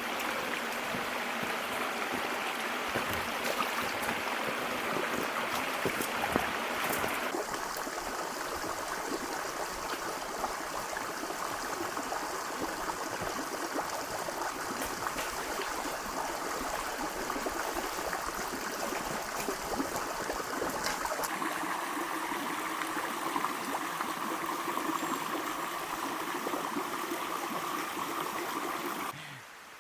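Mountain stream rushing steadily over rocks. Its tone changes abruptly twice, about seven seconds in and again about two-thirds of the way through.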